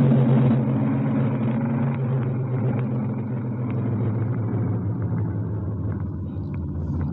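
Low, steady droning rumble from a played-back emergency alert broadcast, with two steady low hums under a rough noisy haze and no speech.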